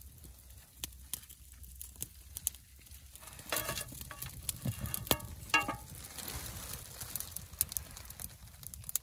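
Small wood fire crackling in a camp firebox stove, with scraping and a couple of short metallic clinks from a utensil on a metal plate a few seconds in.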